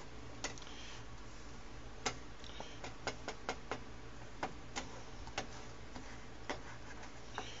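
Spatula tapping and clicking against a skillet while soft scrambled eggs are stirred: about a dozen light, irregular taps, bunched together in the middle. A low steady hum runs underneath.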